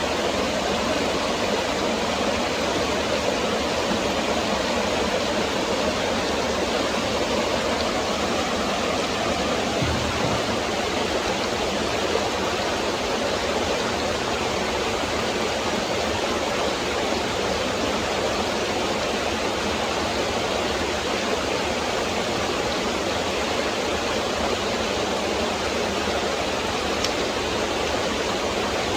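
Forest stream rushing and splashing over rocks in a steady, unbroken wash of water noise.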